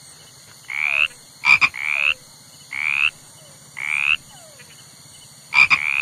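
Frog croaking: a series of short calls, each rising in pitch, about one a second. Some of them open with a sharp rattling pulse.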